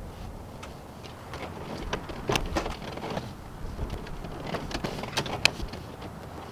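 Irregular light clicks and knocks from hand work on a car's plastic interior door panel as it is unscrewed and pried loose. Sharper clicks come about two and a half seconds in and again around five seconds.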